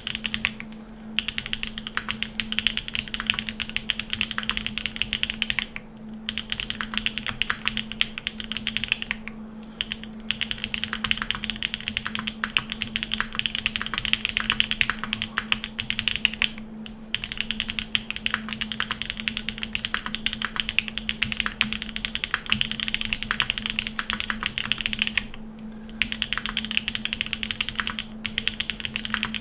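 Continuous fast typing on a 7V custom mechanical keyboard with lubed Jade Black switches in a polycarbonate plate: a dense stream of keystrokes, broken by brief pauses a handful of times.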